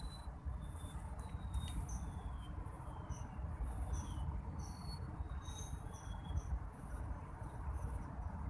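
Insects buzzing in repeated high pulses, with short thin bird whistles, several sliding down in pitch, scattered throughout, over a steady low rumble.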